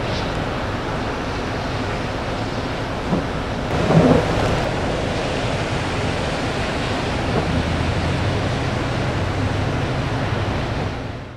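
Steady rushing noise of expressway traffic, with a low engine hum underneath and a louder swell about four seconds in; it fades out just before the end.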